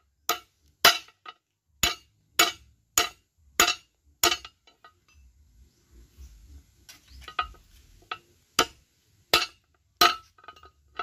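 Ball-peen hammer striking the socket of a car tie rod end resting on a steel plate, as part of a makeshift repair of the worn joint: sharp metallic clanks about every 0.6 s. A run of about seven blows comes first, then a pause with light clinks as the parts are handled, then three or four more blows near the end.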